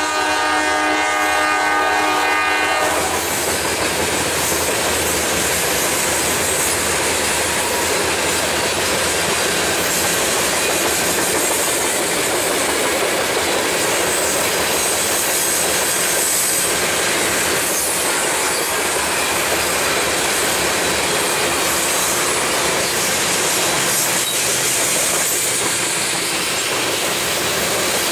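A diesel locomotive's horn chord sounds and cuts off about three seconds in. Under it and after it, a string of railroad tank cars rolls steadily past, with a continuous clickety-clack and rumble of wheels on rail.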